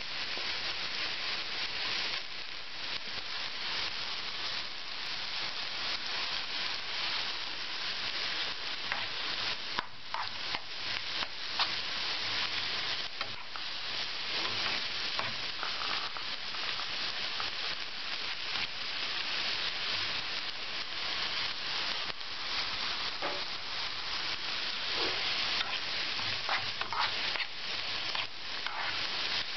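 Diced onion sizzling in vegetable oil in a frying pan, with a spatula scraping through it now and then as it is stirred.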